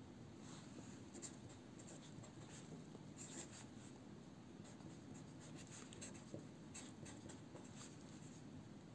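Faint scratching of a pen writing on a sheet of paper, in short irregular strokes.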